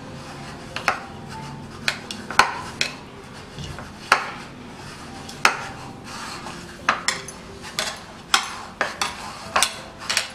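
A hand mixing grated boiled potato with spices in a plastic bowl: soft rubbing broken by irregular sharp clicks and knocks, coming faster in the second half.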